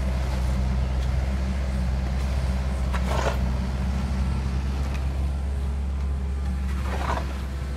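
Kobelco SK50 excavator's diesel engine running steadily under work, with two short harsh sounds about three and seven seconds in.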